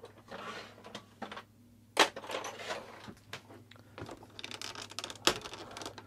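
Plastic hose fittings and housing of a Shark Navigator NV201 upright vacuum being worked loose by hand and with a screwdriver: scattered clicks, knocks and rattles, with a sharp click about two seconds in and another near the end.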